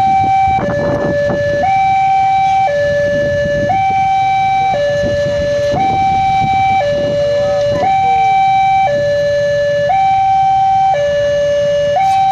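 Railway level-crossing warning alarm sounding while the barrier is down: an electronic two-tone signal alternating high and low, each tone held about a second.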